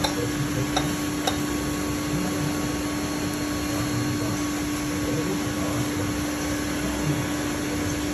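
Steady machinery hum and hiss of shop background noise, with a couple of faint clicks about a second in.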